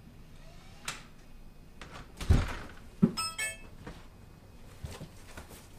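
Front door being opened: a click of the lock, then a heavy clunk as the door swings open, followed by a brief high metallic jingle and a few soft knocks.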